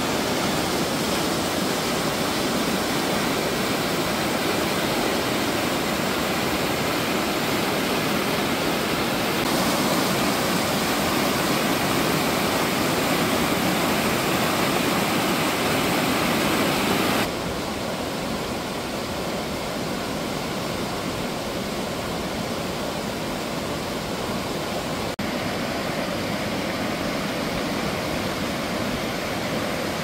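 Steady rushing of white water tumbling over the rocks and rapids of a mountain stream and a small cascade into a plunge pool. The rush changes abruptly twice, dropping slightly in level about halfway through.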